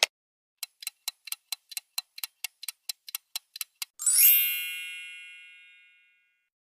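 Notification-tone effect: a quick run of about fifteen light ticks, roughly four a second, then a bright chime that rings out and fades away over about two seconds.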